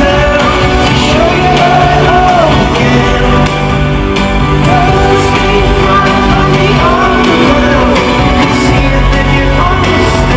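A rock band playing live, with a singer holding gliding sung lines over steady guitar and bass.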